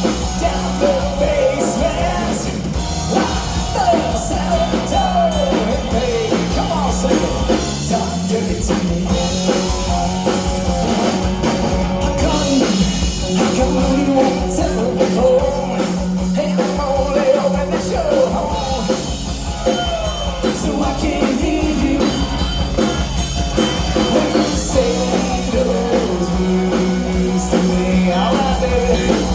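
Live rock band playing a song, with drum kit and guitars under a singing voice.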